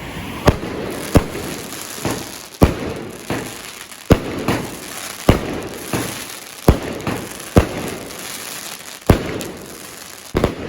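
Fireworks going off in quick succession: a string of sharp bangs, one every half-second to second and a half, with crackling and hiss between the shots.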